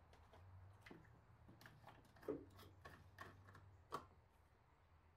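Faint, scattered clicks and taps of plastic being handled as the coolant reservoir cap is taken off, ready for antifreeze; the loudest click comes about four seconds in.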